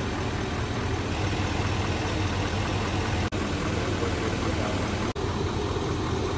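Lifted pickup truck's engine idling steadily, with two very short breaks in the sound about three and five seconds in.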